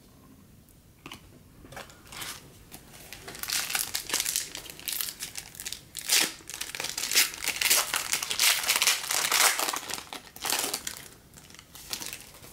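Plastic trading-card pack wrapper crinkling and tearing as it is ripped open by hand. The crackling starts about two seconds in, runs in quick irregular bursts and dies away near the end.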